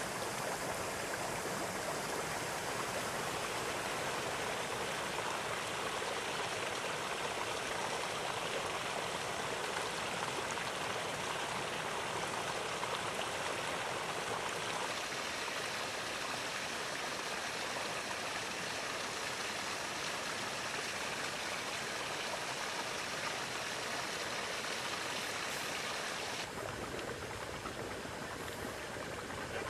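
Volcanic hot spring water bubbling and flowing, a steady rushing wash of water as gas bubbles up through the shallow iron-stained pool. Near the end it drops to a slightly softer, duller sound.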